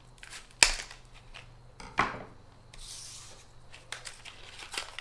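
Scissors cutting into a plastic blister pack: a sharp snip about half a second in and another about two seconds in, a brief rustle of the plastic around three seconds, and small ticks of plastic being handled.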